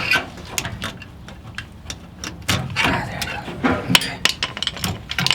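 Scattered sharp clicks and light knocks from the car's fuel and evap lines and their plastic clips being handled and pulled free.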